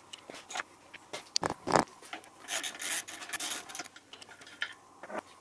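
Hands working a metal motorcycle handguard against the handlebar: scattered clicks, two sharp knocks about a second and a half in, then about a second of scraping and rubbing.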